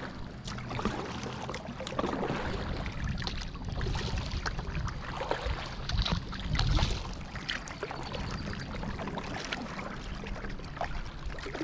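Kayak paddle strokes: the paddle blades dipping and splashing in the water, with drips and trickles between strokes, over a low steady rumble.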